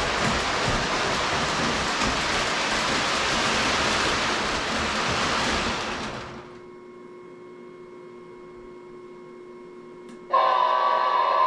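A loud, steady rushing hiss that fades away about six seconds in, leaving a faint hum. Near the end a loud, many-toned horn-like blast starts suddenly, likely the electronic horn of an O-gauge model diesel locomotive's sound system.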